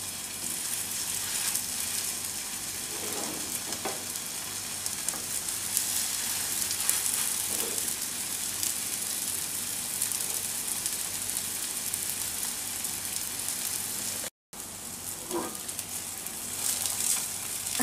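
Chicken-mince burger patties sizzling in hot oil on a non-stick tawa: a steady crackling fry.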